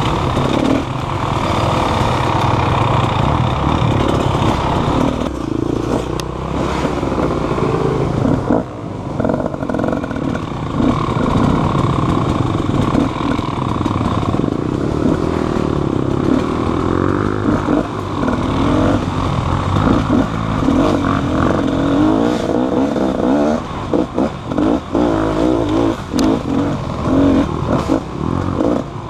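Motorcycle engine running and revving up and down, with rattling and knocks throughout.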